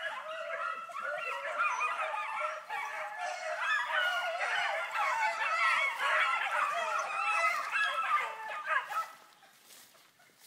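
A pack of dogs baying in full cry while running a rabbit, many voices overlapping at once. The chorus fades away about nine seconds in.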